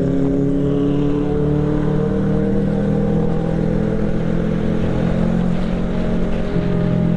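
Kawasaki Z650 parallel-twin engine running at cruising speed, heard from on the bike, its pitch sinking slowly over the first few seconds as the throttle eases, then holding steady.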